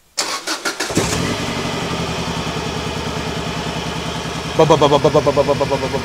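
A GC8 Subaru Impreza STI's turbocharged flat-four is cranked on the starter, catches about a second in and settles into a choppy idle from a misfire. About four and a half seconds in it gets louder, with an uneven pulsing.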